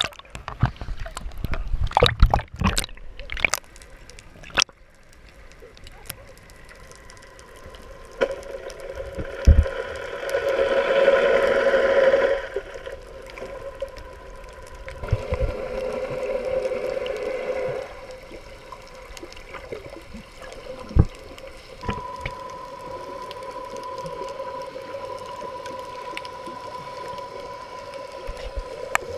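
Splashing at the sea surface for the first few seconds, then the muffled gurgling and sloshing of water heard from under the surface, swelling twice. A steady faint hum comes in for the last several seconds.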